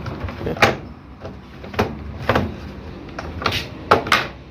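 About six sharp plastic clicks and knocks as a Toshiba washing machine's control panel fascia is worked loose from its clips.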